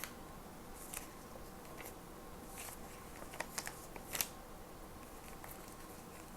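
Soft rustles and light clicks of paper and stationery being handled, with a quick run of sharper ticks about three and a half to four seconds in.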